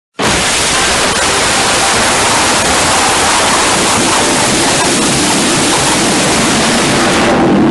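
Loud, harsh rushing noise like static that starts abruptly and holds steady, used as a punishment sound effect.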